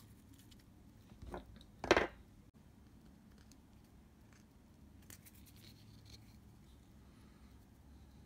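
Small hand-tool sounds at the workbench: two short scraping or snipping noises about one and two seconds in, the second louder, then a few faint light ticks.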